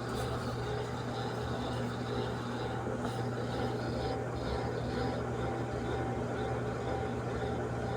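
Daewoo washing machine running in its rinse stage: a steady mechanical hum.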